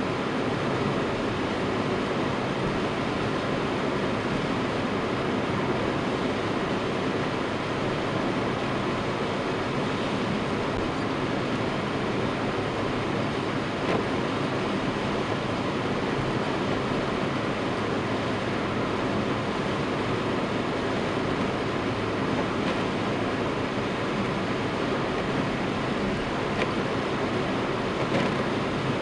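Steady road and engine noise inside a moving car's cabin: tyre rumble and engine running at an even cruise. A few faint ticks from the windscreen wipers sweeping.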